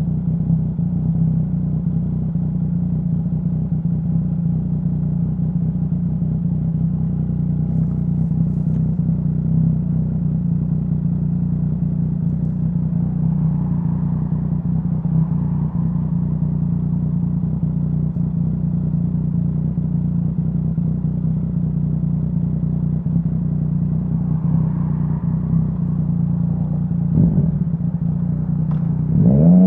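2017 Yamaha Tracer 900's three-cylinder engine through a full Dominator HP3 aftermarket exhaust, running steadily at a constant low note, most likely idling. Near the end it revs up sharply as the throttle opens.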